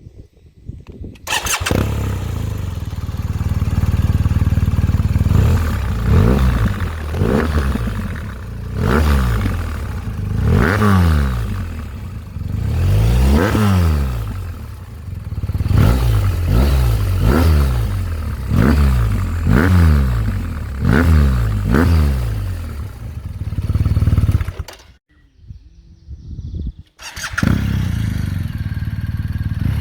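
BMW R 1250 RS boxer-twin engine through a MIVV SR-1 aftermarket exhaust, being revved over and over in throttle blips, each a quick rise and fall in pitch, about one a second. It comes in suddenly about a second and a half in, drops out for about two seconds near the end, then returns running steadily.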